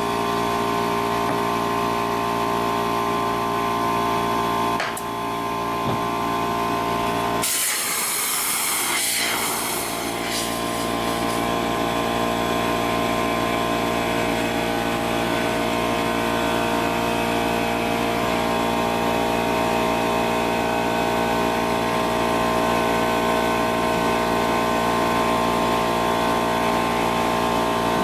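A motor or engine running steadily, with a brief burst of hissing noise about seven and a half seconds in.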